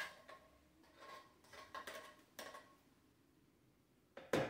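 Cream of coconut trickling faintly from an upturned can into a blender jar, followed by a sharp knock near the end.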